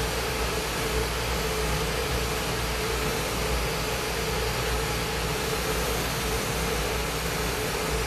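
Lampworking bench torch burning with a steady rushing hiss while silver is fumed onto a borosilicate glass blank held in the flame.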